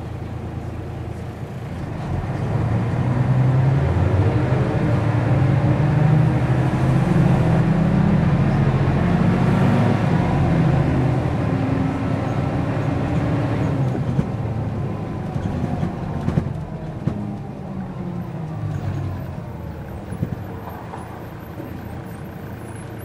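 Mercedes-Benz O405 N² city bus's horizontal six-cylinder diesel engine heard from inside the cabin, pulling under load as the bus accelerates. It grows louder about two seconds in, its pitch rising and falling, then eases off in the second half, with a few short knocks near the end.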